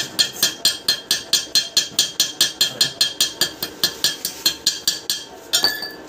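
Rapid, even metal-on-metal tapping on a car door hinge, about five light strikes a second, each with a short ringing note; the tapping stops about five seconds in, followed by one last ringing clink.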